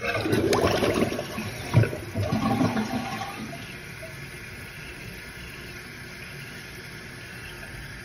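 Water rushing into a toilet tank through a Fluidmaster fill valve. It is loud for the first three seconds or so, with a knock near two seconds in, then settles to a steady hiss as the valve keeps filling.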